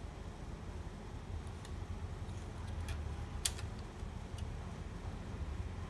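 A few sharp plastic clicks, the loudest about halfway through, as cable connectors on the main board of an HP Color LaserJet Pro MFP M181fw are handled, over a steady low hum.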